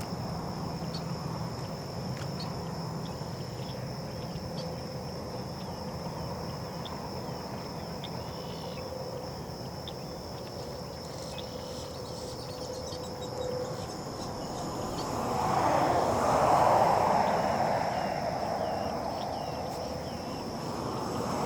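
Distant road traffic with a steady high insect drone and scattered small chirps over it; about fifteen seconds in, a passing vehicle swells louder and fades away.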